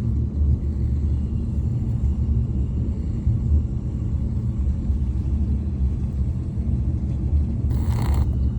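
Steady low road and engine rumble of a moving car, heard inside the cabin. Near the end there is one short, breath-like noise.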